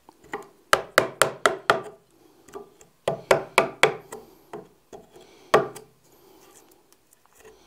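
A chisel struck in quick taps, chopping waste out of a wooden board to inlet a hinge strap. The taps come in a run of about five, then about four, then one louder blow.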